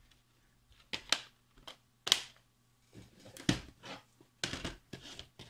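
Irregular plastic clicks and knocks as a disc is pried off the centre hub of a plastic DVD case and handled.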